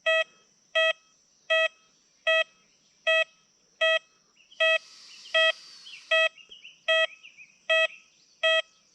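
XP Deus 2 metal detector beeping at a steady pace, about one short beep every 0.8 s, each the same mid-pitched tone, as it signals a US quarter target. Faint high chirps are heard briefly in the middle.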